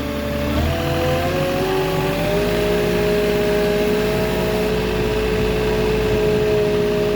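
Moffett truck-mounted forklift's engine revving up about a second in, then holding steady at raised revs, easing back slightly near the end.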